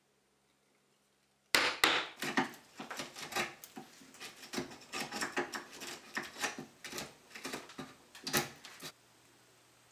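A narrow chisel cutting and levering waste out of a mortise in tulip poplar: a run of irregular sharp wooden knocks and cracks, a few a second. It starts suddenly about a second and a half in with two loud strikes, has another loud one near the end, and stops abruptly.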